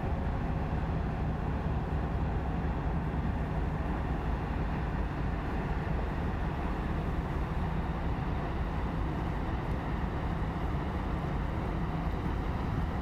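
Inland tanker barge's diesel engine running steadily as the vessel passes, a low, even drone with a steady hum.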